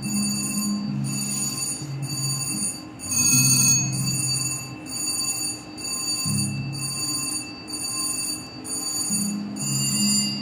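Raining Silver & Gold slot machine playing its game music while the reels spin: rhythmic, repeating bell-like chimes over a low melody whose notes change every second or two.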